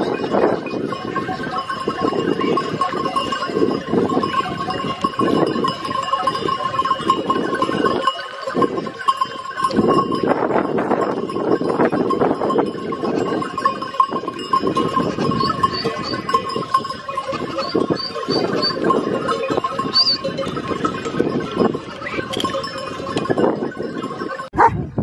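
Bells on grazing sheep and goats ringing steadily, over close rustling through plants.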